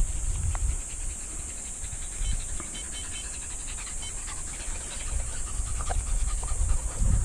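A hunting dog panting close by, over a steady high hiss, with low rumbling that grows stronger in the last couple of seconds.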